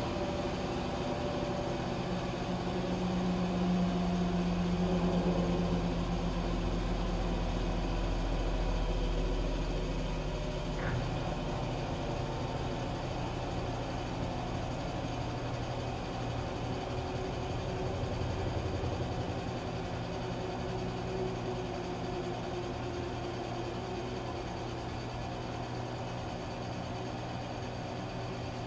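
Washing machine running: a steady motor hum with a low rumble that grows louder for several seconds and then settles back.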